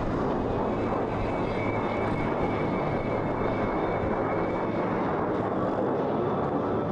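Jet engines of a formation of F-16 Fighting Falcon fighters passing overhead: a steady, even roar, with a faint high whine through the first half.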